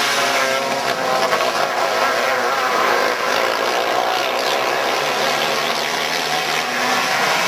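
Several outlaw dirt kart engines racing together around a dirt oval, a dense mix of engine notes that keep rising and falling as the karts lap.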